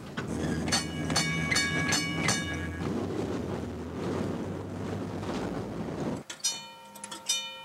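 Vintage electric trolley car running along the track with a low rumble, its bell struck repeatedly about a second in. After a drop in level near the end, a few fainter bell strokes ring out.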